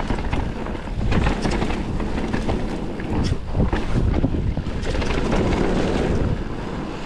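Forbidden Dreadnought full-suspension mountain bike rolling fast down a dirt trail: tyre roar over dirt and rock with frequent knocks and rattles from the bike, and wind buffeting the chest-mounted microphone.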